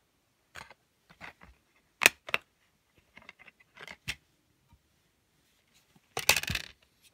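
Plastic clicks and small rattles from handling a DVD case: two sharp clicks about two seconds in, scattered light taps, and a denser clatter near the end.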